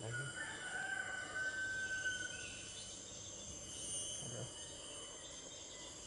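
Steady high-pitched insect chorus. A long level whistled note lasts about two seconds near the start.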